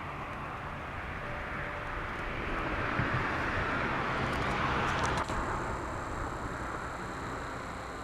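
A passing vehicle: a noisy rumble that swells to its loudest about midway, then fades away.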